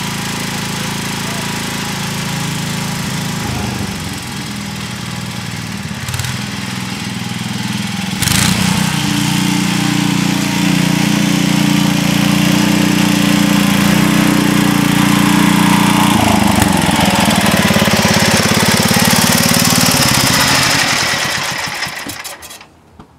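Sears ST/16 garden tractor engine running steadily. It gets louder about a third of the way in as the tractor comes close, then shuts off suddenly near the end.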